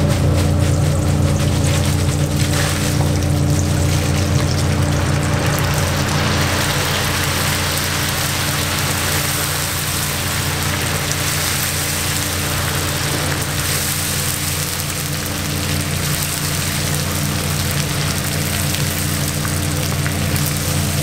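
Hot oil in a deep fryer sizzling and bubbling hard as a batch of bugak is tipped in and stirred with wire skimmers. The sizzle swells about two seconds in and then stays steady, over a steady low hum.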